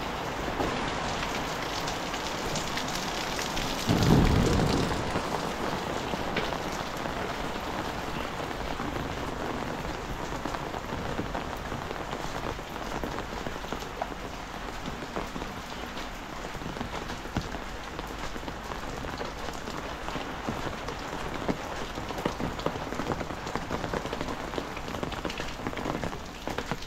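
Heavy rain falling steadily, with a brief low rumble about four seconds in.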